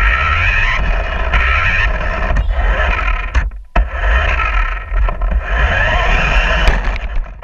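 Remote control toy truck running: its electric motor and wheels make a loud, steady whirring rumble that cuts out briefly about three and a half seconds in and stops near the end.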